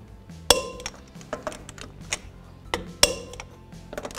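Torque wrench clicking twice, two sharp metallic clicks about two and a half seconds apart, as lug nuts reach their set torque of 140 ft-lb. Lighter clinks of the 22 mm socket and wrench on the lug nuts come in between.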